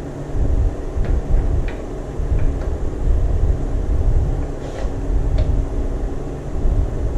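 Steady low rumble, with a few light metal clicks as valve tappets are slid into their bores in the engine block.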